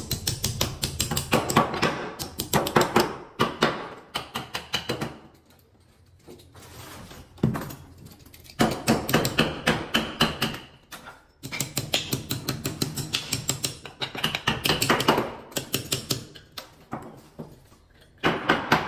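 Claw hammer driving nails through small wooden blocks into the ceiling: quick runs of light strikes, several a second, with short pauses between runs.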